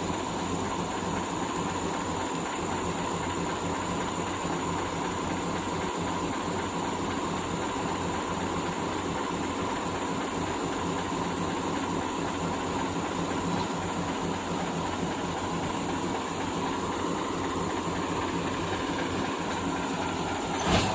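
Heavy diesel engine idling steadily, with a single sharp knock near the end.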